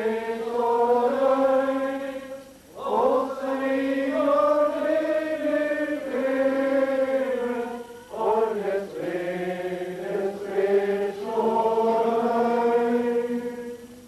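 A group of voices singing a slow song in unison, long held notes in phrases with short breaks between them, ending at the close of the last phrase.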